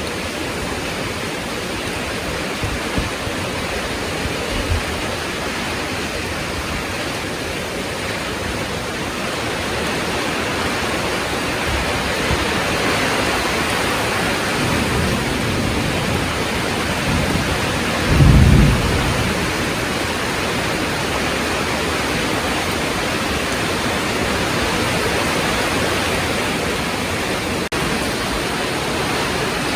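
Heavy rain falling steadily, with a low rumble of thunder that builds about halfway through and peaks briefly a few seconds later.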